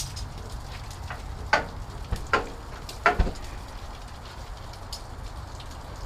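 Oyster shells knocking and clinking against each other and the grill four times as they are handled, over a steady low rumble and faint crackling.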